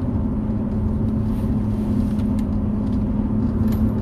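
Car running, heard from inside the cabin: a steady low rumble with a steady hum, and a few faint ticks.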